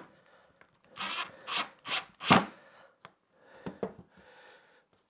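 Cordless impact driver, a Milwaukee Fuel, driving a screw into wood in four quick short bursts with a high motor whine, seating a toggle clamp onto a wooden base. A few light clicks follow.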